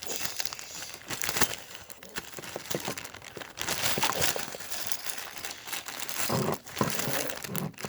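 Packaging crinkling, crackling and rustling as hands work at it, trying to get it open.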